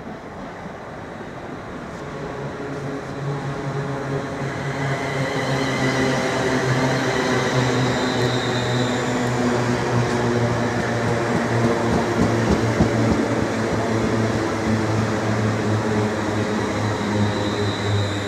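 Class 350 Desiro electric multiple unit running in alongside the platform, growing louder over the first few seconds as it approaches, then holding a steady low hum with a faint high tone over it.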